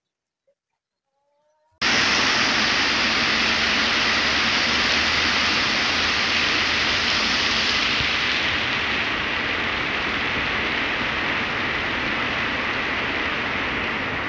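Near silence, then about two seconds in, heavy rain starts suddenly as a loud, steady rushing hiss with a deep rumble beneath, easing slightly toward the end.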